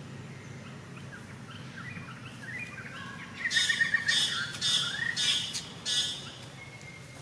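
Bird chirping: a run of short rising chirps, then about five loud, harsh calls in quick succession.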